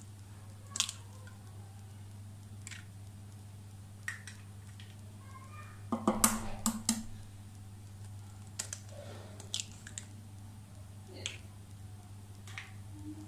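Eggs being cracked open by hand over a plastic bowl: scattered sharp taps and clicks of shell, loudest in a quick cluster about six seconds in, over a steady low hum.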